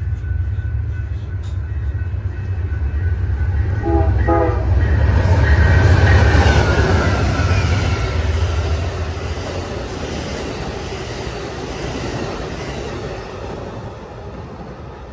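Amtrak passenger train led by a pair of GE P42DC diesel locomotives passing at speed, with the diesel engines' low rumble throughout. A short horn blast comes about four seconds in. The noise of the locomotives and cars rushing by then peaks around six seconds and fades as the train goes away.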